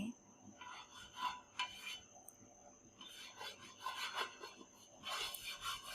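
A few short rubbing and scraping strokes on cookware, in three or four separate bouts.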